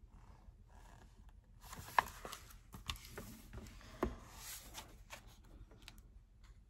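Faint handling noise from a book being moved and put down: light paper rustles, with two sharp knocks about two and four seconds in.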